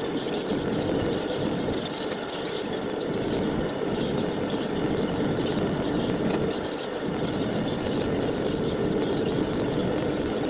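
Burners of a homemade bladesmithing furnace firing, a steady rushing noise of the flame that holds without a break.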